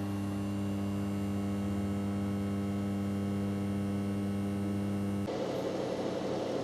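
Steady 50 Hz substation transformer hum, a deep drone at 100 Hz with a stack of higher overtones, as normal equipment sounds. About five seconds in it gives way suddenly to a fainter hum under a steady rushing noise.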